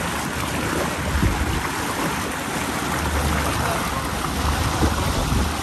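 Wind buffeting the microphone in uneven low gusts over the steady rush of water from a small boat moving across open water.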